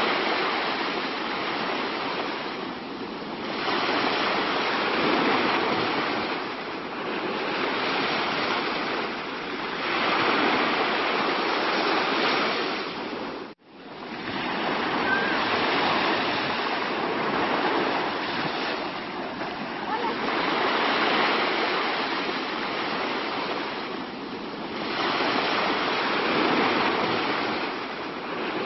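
Sea waves washing in a steady rush of water that swells and ebbs every few seconds. It cuts out for an instant about halfway through and starts again.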